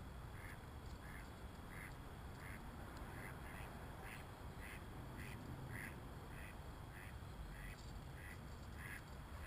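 Ducks quacking in a steady run of short calls, about two a second, over a low rumble.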